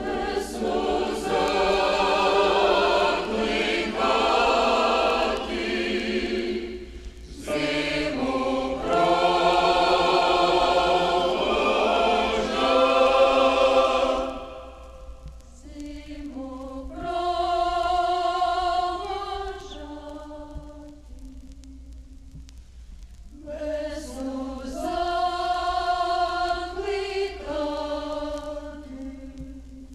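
Choir singing: full, loud phrases for about the first fourteen seconds, a softer, thinner passage in the middle, then a fuller phrase again that softens near the end.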